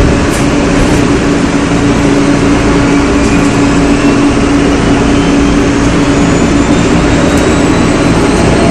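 Seoul Metro Line 3 3000-series train with GEC chopper control running: a loud steady rumble of the moving train. A steady hum sits under it and fades about halfway through, and faint high whines rise slowly in pitch.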